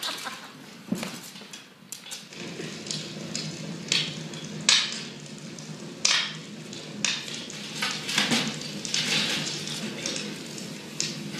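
Hands rummaging through a basket: irregular clicks and clatter over a rustling, crackling sound, with a few sharper knocks.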